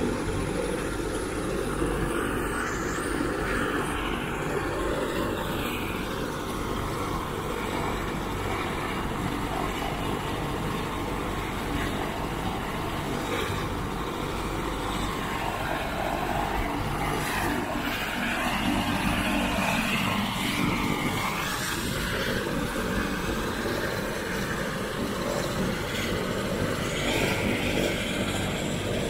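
An AS350 Écureuil (H125)-type single-engine turbine helicopter running on the ground with its main rotor turning. It gives a steady mix of turbine noise and the fast beat of the rotor blades.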